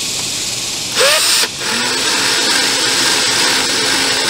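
Ryobi cordless drill/driver driving a screw into a car's rear bumper on a low torque setting: a short burst with a rising whine about a second in, then a steady run as the screw goes in.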